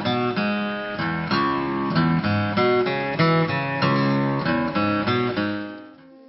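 Acoustic guitar music, chords strummed in a steady rhythm, which fades out quickly near the end and leaves a faint steady tone.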